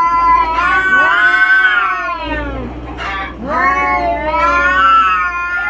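Cats caterwauling in a fight: two long, wavering yowls that rise and fall in pitch, with a short break between them.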